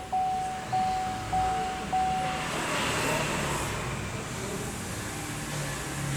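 Car dashboard warning chime dinging at one steady pitch about every 0.6 s, four times, stopping about two and a half seconds in; a low steady hum follows.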